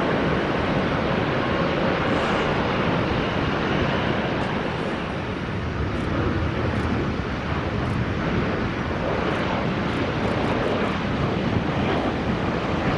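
Steady jet engine noise of airliners: a Boeing 777's engines at takeoff power, giving way partway through to a Boeing 737 on final approach.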